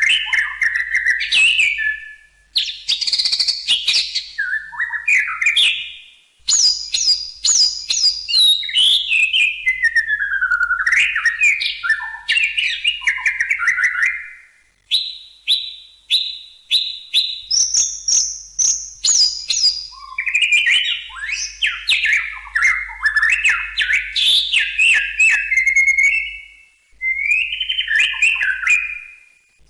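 White-rumped shama singing a long, varied song: loud whistled phrases, runs of quick repeated notes and sliding, falling whistles, in bursts broken by brief pauses.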